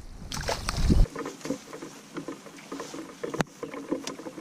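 Rain pattering, with scattered small ticks and knocks. A low rumble on the microphone builds to a loud bump about a second in, and there is one sharp click a little past three seconds.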